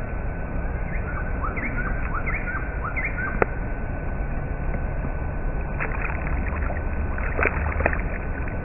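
Small bass boat's electric trolling motor running with a thin steady whine over a low rumble. A few short chirps come in the first few seconds, and there are sharp clicks about a third of the way in and again near the end.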